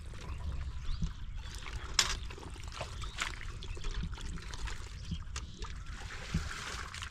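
Shallow muddy water and wet mud splashing and squelching as a person wades and handles a bucket, with a few brief sharp knocks scattered through.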